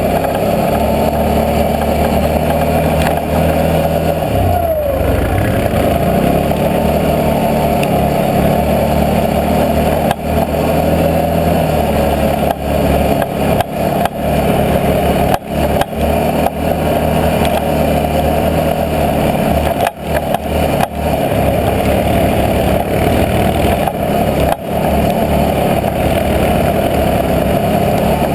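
Can-Am Outlander 650 X mr ATV's V-twin engine running under load on a snowy trail. Its engine speed dips about five seconds in and then picks up again, and a few short dips in the sound come later on.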